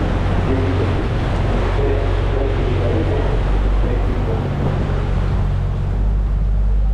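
Canal tour boat's engine running steadily with a low hum, under a rush of water and wind noise; the engine note shifts slightly about six seconds in.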